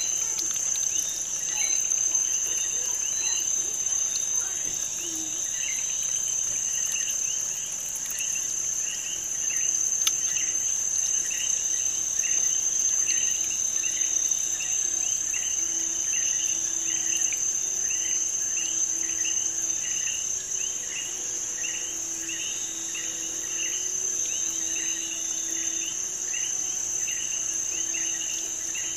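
Steady high-pitched hiss while the vivarium's misting system sprays, with a run of short chirps at about one to two a second that become regular after about eight seconds.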